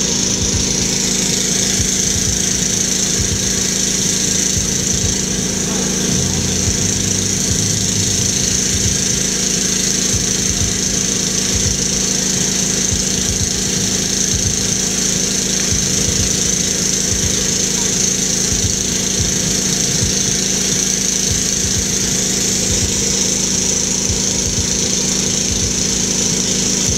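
Steady, loud crackling hiss with a fluttering low rumble underneath, unchanging throughout: rain or wind noise on a camera microphone.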